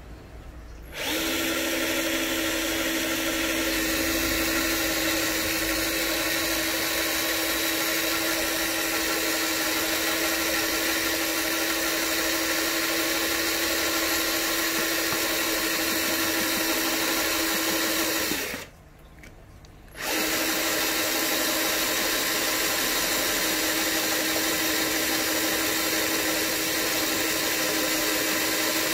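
Electric drill driving a metal hole saw through white plastic, running at one steady speed and pitch. It starts about a second in, stops for about a second and a half some two-thirds of the way through, then starts again and keeps cutting.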